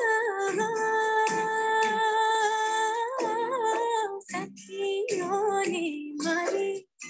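Recorded song with a woman singing: she holds one long wavering note for about three seconds, then moves through shorter ornamented notes, with a brief dropout near the end.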